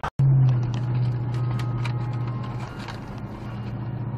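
A car driving, heard from inside the cabin by a dashcam: a steady low drone that eases off after the first couple of seconds, with many small irregular clicks and rattles over it.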